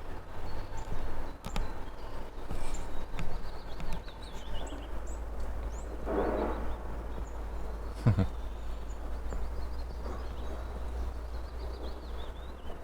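Small birds singing in runs of short, quick chirps, over a steady low outdoor rumble. A soft thump about eight seconds in.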